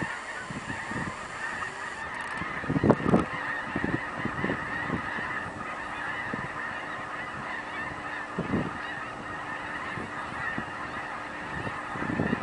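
A huge flock of birds calling all at once, a dense steady chorus of many overlapping calls, with a few brief low thumps, the strongest about three seconds in.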